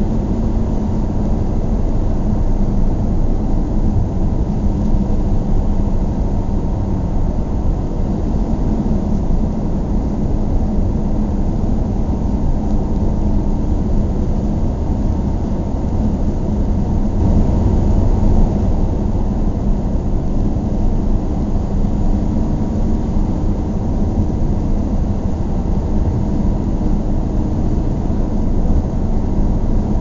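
Car driving at a steady speed: a constant low rumble of engine and tyre noise, swelling slightly a little past halfway.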